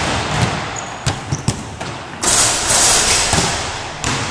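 Basketballs bouncing on a wooden gym floor, several sharp knocks in the first half echoing in the hall, with a loud rushing noise lasting about a second midway.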